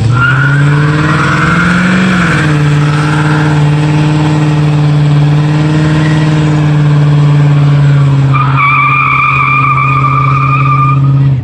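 Car engine revved up and then held at a steady high rpm, with a high, steady squeal joining about three seconds before the engine cuts off abruptly at the end.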